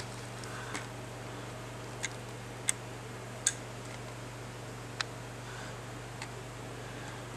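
Steady low hum with about five short, sharp clicks spread irregularly over the first five seconds.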